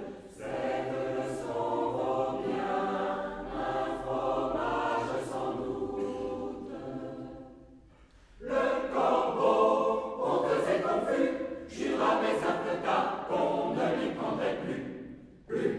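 A large amateur choir singing in French. The singing fades out about halfway, pauses briefly, then comes back in louder and breaks off just before the end.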